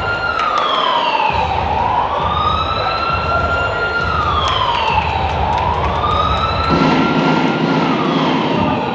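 A wailing siren sound played over a public-address system for a boxer's ring entrance, rising, holding and falling again roughly every three and a half seconds. A deeper, fuller sound joins it about two-thirds of the way through.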